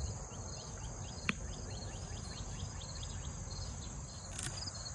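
Steady high-pitched chorus of crickets, with a single sharp click a little over a second in.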